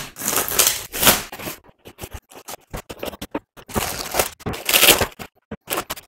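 Unboxing: plastic shrink-wrap tearing and crackling on a cardboard box, then cardboard and plastic packaging rustling and scraping with scattered clicks as the contents come out. The rustling is loudest in the first second and again about four to five seconds in.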